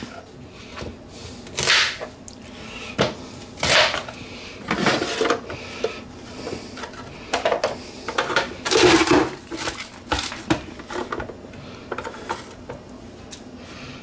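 Onion being cut with a kitchen knife on a plastic cutting board and pressed through a manual push-down vegetable chopper: a series of irregular crunches and plastic clacks, about one every second.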